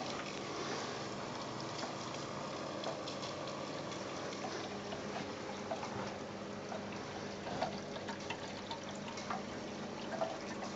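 Water rushing, splashing and gurgling through a DIY PVC aquarium overflow, with a faint low hum underneath and scattered gurgles and drips. The larger 1260 pump pushes so much water into the overflow that it sounds like a toilet.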